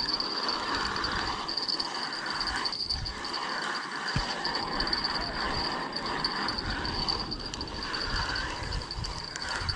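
Insects calling in a steady, high, continuous drone, with a lower chorus that swells and fades about once a second.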